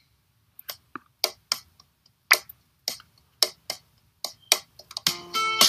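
A run of sharp, unevenly spaced clicks, about three a second. Near the end, strummed guitar music starts.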